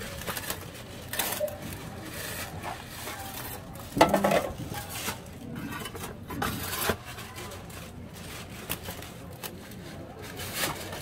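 Metal bread tins being pulled across a brick oven floor with an iron hook, scraping and clanking, with the loudest clank about four seconds in.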